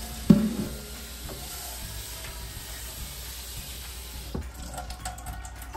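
A stainless steel stockpot knocks against the sink with a short ringing clank just after the start, then tap water runs steadily into the pot, with a couple of fainter knocks of the pot later on.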